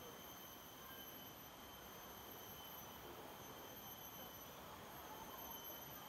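Near silence: faint background hiss with a thin, steady high-pitched tone.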